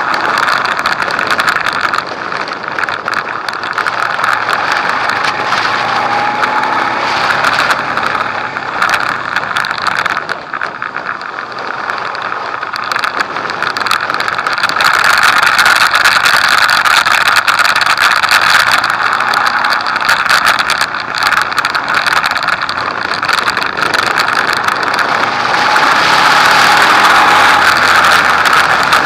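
Onboard sound of a motorcycle riding a race circuit: wind rushing over the microphone, with the bike's engine underneath rising and falling in pitch as it speeds up and slows for the corners. It gets louder about halfway through.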